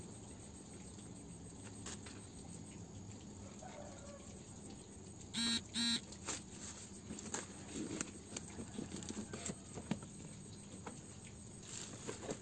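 Hands handling cardboard packaging and bubble wrap: scattered rustles, crinkles and light taps as a printed sleeve is slid aside and the box lid is opened. About five seconds in, two short identical pitched beeps, half a second apart, are the loudest sound, over a steady low hum.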